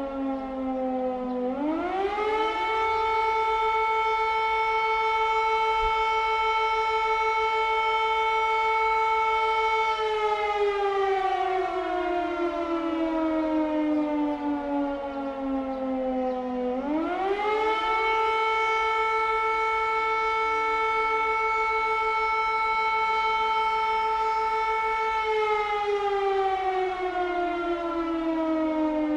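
Air raid siren wailing: it winds up quickly to a steady high tone, holds it for about eight seconds, then slides slowly down before winding up again, two full rise-and-fall cycles in all.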